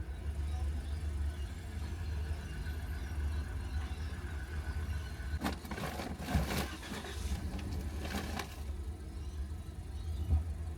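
Steady low rumble of a vehicle running, with a few seconds of louder hissing noise a little past the middle.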